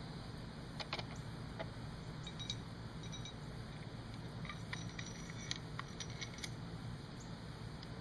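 Small metal parts of a Charter Arms AR-7 .22 rifle clicking and clinking irregularly as they are handled and fitted together by hand, over a steady low hum.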